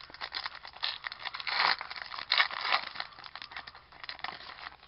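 Foil trading-card pack wrapper being torn open and crinkled by hand: a dense crackling with two loudest bursts around the middle.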